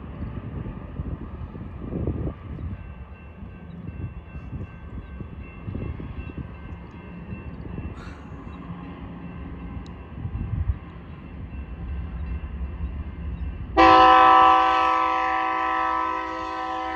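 Low rumble of a train, then about 14 seconds in a BNSF locomotive's air horn sounds one long, loud blast of several tones at once.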